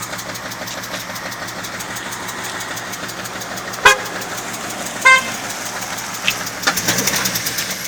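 BMW E39's M52 2.8-litre inline-six running with a rapid knocking tick, the engine knock the car is filmed for. Two short car-horn toots come a little over a second apart, about four and five seconds in.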